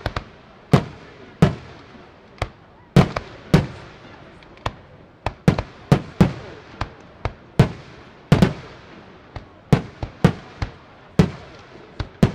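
Aerial firework shells bursting in quick succession: about twenty sharp bangs at irregular gaps of half a second to a second, each trailing off in a short echo.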